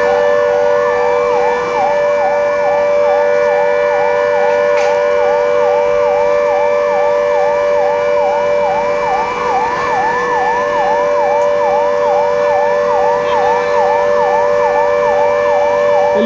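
Electronic emergency-vehicle siren in a fast yelp, its pitch sweeping up about three times a second, over a steady low two-note tone that holds throughout.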